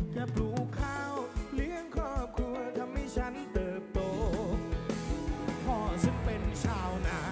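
Live band music played over a large concert PA: a steady drum-kit beat under a bending, wavering melody line. The band gets fuller and louder about four seconds in.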